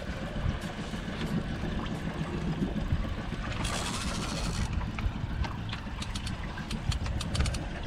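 Small Honda outboard motor running at low throttle under wind on the microphone and water splashing against the hull, with a brief burst of hiss about halfway through.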